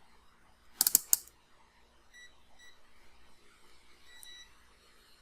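A quick cluster of sharp clicks about a second in, then faint short high-pitched electronic beeps: two brief ones around two seconds in and a slightly longer one near the end.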